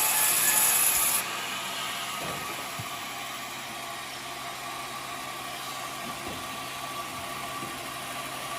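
Portable sawmill cutting coconut wood with a hissing blade noise that stops about a second in. The mill's engine and blade then run on steadily with a humming tone.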